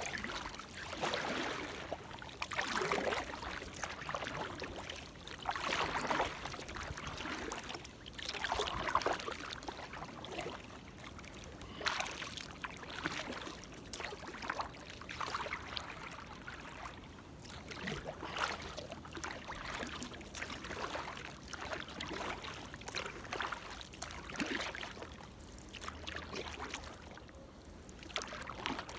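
Kayak paddle strokes: a double-bladed paddle dipping into the river, water splashing and dripping off the blades, a stroke every few seconds.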